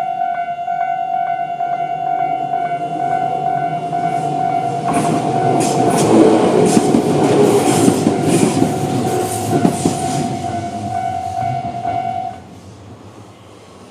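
Railway level-crossing warning bell ringing in steady, rapid pulses while a Tobu 10000-series electric train passes from about five to eleven seconds in, its wheels clicking over the rail joints. The bell stops abruptly about twelve seconds in.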